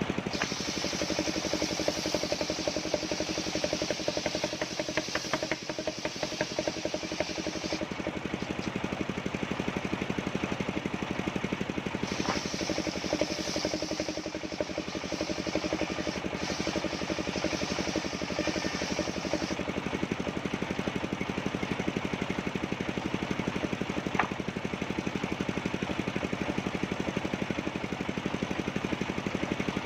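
Small engine of a portable sawmill running steadily. Twice, for about seven or eight seconds each time, a high hiss rides over it, consistent with the saw cutting through coconut-palm wood.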